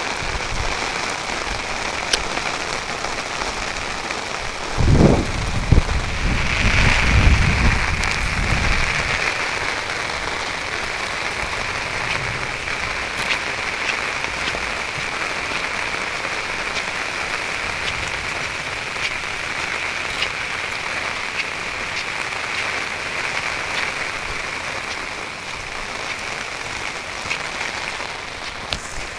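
Heavy rain falling steadily, with scattered sharp drop ticks. About five seconds in, a low rumble rises and lasts a few seconds.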